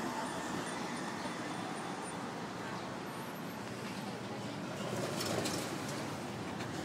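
City street ambience: a steady hum of passing traffic.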